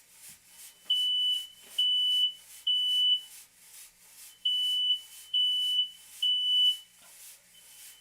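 Smoke alarm sounding a loud, high, single-tone beep in groups of three long beeps with a pause between groups: the standard temporal-three evacuation pattern. Two full groups sound.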